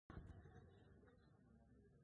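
Near silence: faint low room hum of a live venue, cutting in abruptly a fraction of a second in.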